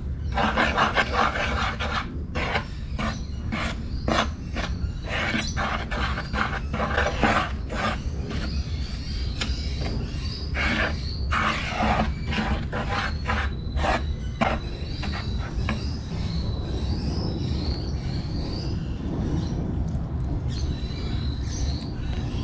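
Metal spoon scraping and stirring flour against a wooden bowl in quick, irregular strokes, busiest in the first two-thirds and softer after that.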